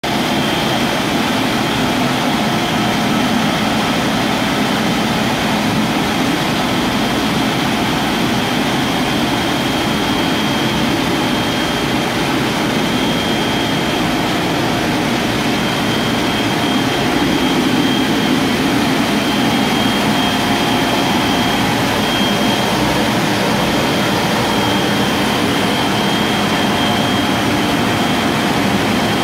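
Steady machine noise of a Kest ENG LPRO-B412-6000 reverse osmosis water unit running: its vertical multistage high-pressure pump and motor give an even hum with a thin, steady high whine above it.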